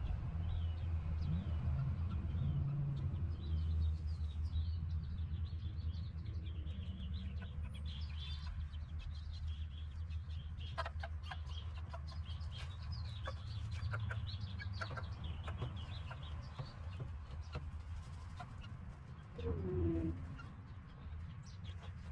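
Backyard chickens clucking softly as they scratch and peck, with one louder falling call near the end. Small birds chirp in the background over a steady low hum.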